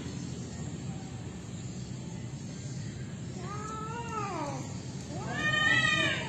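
A cat yowling twice during mating, two drawn-out cries that each rise and fall in pitch. The second cry, near the end, is longer and louder.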